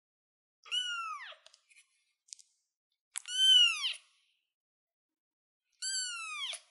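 A young kitten meowing three times, each call high-pitched and dropping in pitch at its end; the middle call is the loudest. A few faint ticks come between the first two calls.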